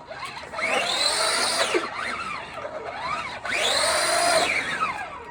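Battery-powered RC car's electric motor whining as it is throttled up and down twice, each burst rising then falling in pitch over about a second and a half. The wheels are spinning on a slippery surface, more like a burnout than a drift.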